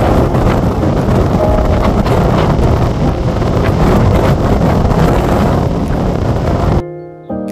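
Heavy surf breaking against rocky cliffs, a loud, continuous rushing noise, with wind buffeting the microphone. The sound cuts off abruptly near the end.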